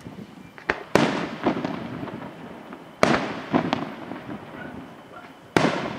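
Aerial firework shells bursting: three loud bangs about two and a half seconds apart, each trailing off in a long fading echo, with smaller pops and cracks between them.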